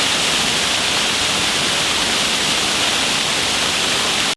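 Waterfall rushing: a loud, steady hiss of falling water that cuts off suddenly at the end.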